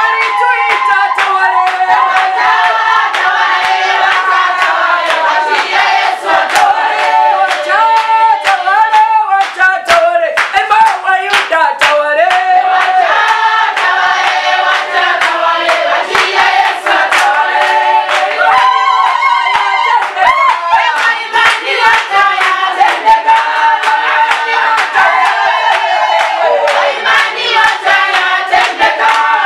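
Congregation singing a praise song together, with steady hand clapping throughout.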